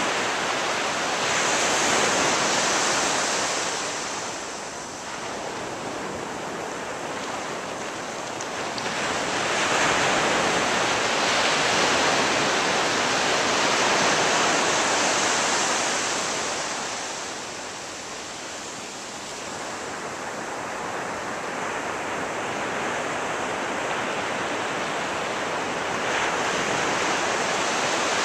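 Ocean surf on a beach: a continuous wash of rushing noise that swells as waves break and ebbs between them, loudest about two seconds in and again for several seconds in the middle, then building once more near the end.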